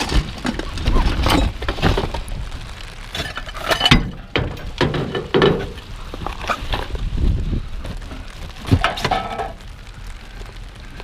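Junk being rummaged and shifted in a dumpster: irregular clanks, knocks and clinks of scrap being moved about.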